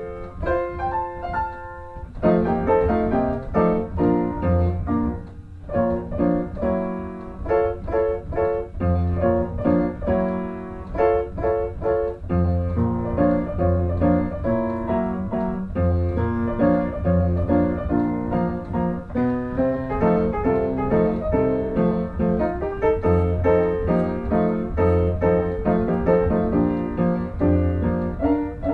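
Background music led by piano, with a bass line and a steady rhythm.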